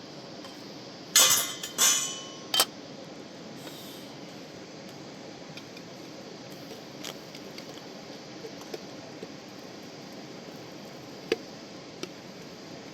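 Three sharp, ringing clinks of hard objects knocked together about a second in, followed later by a few faint clicks. All of it sits over the steady rushing of the mountain river.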